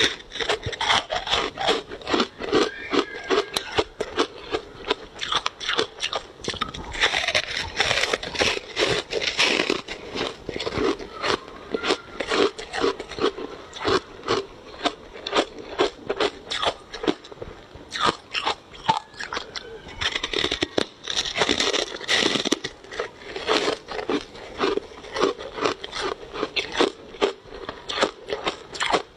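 Close-up crunching of ice being bitten and chewed: a rapid, continuous run of sharp crunches, several a second, with two louder, denser stretches partway through and near the end.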